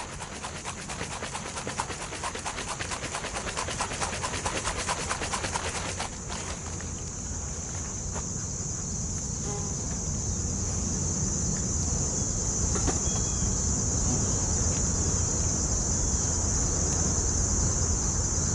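An alcohol-wash jar with a sample of honey bees in alcohol is shaken hard to dislodge varroa mites, making a rapid rhythmic sloshing and rattling that stops about six seconds in. Crickets chirr steadily throughout, and a low rumble grows louder in the second half.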